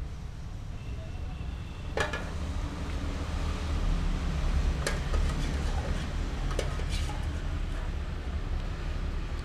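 A metal utensil scraping and clinking against a small metal saucepan while noodles are scooped out into a bowl, with a few sharp clinks, over a steady low rumble.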